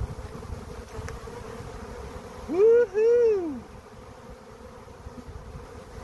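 Honey bee swarm buzzing steadily as loose bees fly around the hive box and tree. Just past the middle a much louder buzz rises and falls in pitch twice over about a second.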